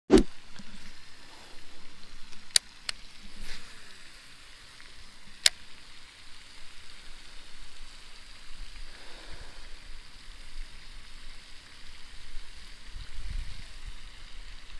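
Steady outdoor hiss with a few sharp clicks from a baitcasting rod and reel being handled, three of them within the first six seconds, and a low rumble near the end.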